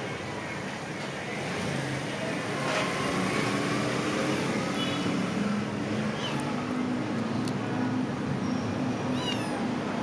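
A domestic cat meowing a few times, the clearest call near the end, over a steady background rumble.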